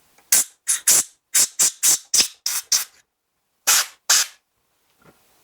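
Compressed-air blow gun fired in quick short bursts to clear metal chips and cutting fluid out of a drilled hole: about nine sharp hisses in a row, then a pause and two more.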